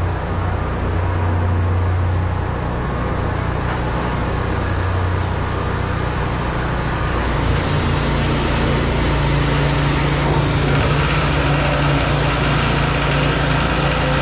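Engine of a high-pressure drain-jetting machine running steadily, its hum stepping up to a higher pitch about halfway through.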